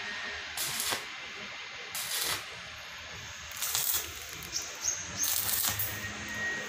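Stick (arc) welder striking and burning a rod in four short crackling, sizzling spurts of about half a second each: short tack welds.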